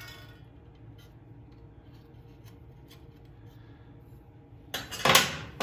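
A metal T-handle spark plug wrench clinks once with a short ring on the engine. After that there is only a low steady hum, until a loud scraping, rustling noise lasting under a second near the end.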